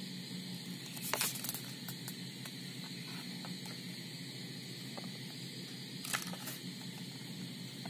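A flexible plastic spouted juice pouch is handled and squeezed to pour into a glass mug, over a steady background hiss. It gives a few brief crinkles and clicks, a cluster about a second in and a couple more around six seconds in.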